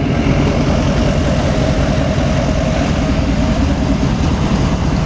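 A vehicle engine idling steadily, with a faint thin hum over it that stops about three and a half seconds in.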